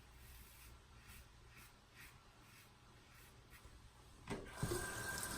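Faint short scrapes of a razor drawn across lathered skin, stroke after stroke. About four seconds in, a tap is turned on and water runs steadily into the sink, much louder than the scrapes.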